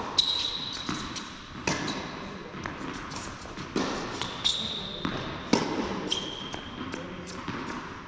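Tennis rally on an indoor hard court: racket strikes and ball bounces echoing through a large hall, the loudest hits about every two seconds, with a few high sneaker squeaks between them.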